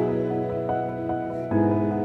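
Slow background music of long sustained notes, with a new chord coming in about one and a half seconds in.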